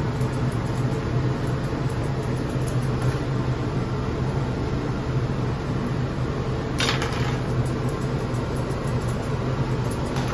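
Steady mechanical whir with a low hum, like a fan running in the room, with faint, crisp snips of curved grooming shears cutting a dog's tail fur on top. A brief rustle about seven seconds in.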